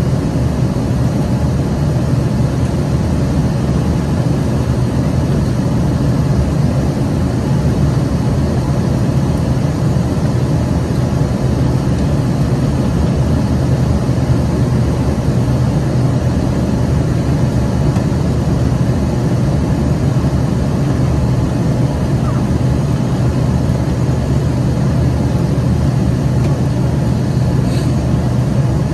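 Rolls-Royce AE 3007 turbofans of an Embraer ERJ-145 regional jet heard from inside the cabin as a steady drone with a strong low hum, the level not changing.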